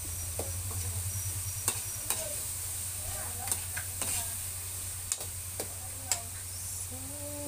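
Ground meat and vegetables for pinakbet sizzling in a pan over a steady low hum, with a spatula or spoon scraping and clicking against the pan every second or so as it is stirred.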